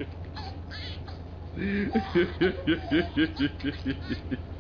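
A person laughing hard in quick, even pulses, about five a second, starting about a second and a half in and breaking off near the end.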